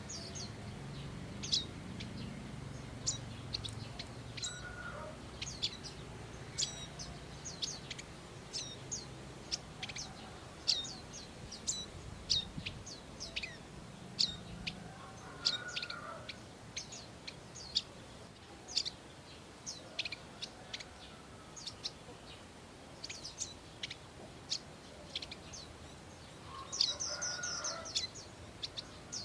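Prinias calling: a long run of short, sharp high chips, about two a second, some falling in pitch. There is a brief buzzy trill near the end and, now and then, a fainter, lower warbling call.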